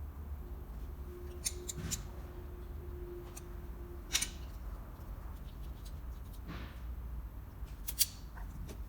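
Sharp clicks and snips of a hand tool, a handful spread out with the loudest two about four and eight seconds in, over a low steady hum.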